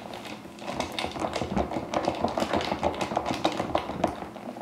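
A spoon stirring ice in a glass pitcher of fruit punch: rapid clinking of ice and spoon against the glass, several clinks a second, stopping shortly before the end.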